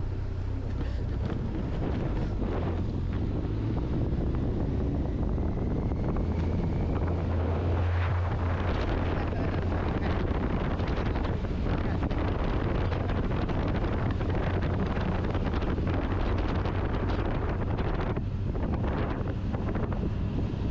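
Wind rushing over the microphone of a moving motorcycle, with a steady low engine drone underneath.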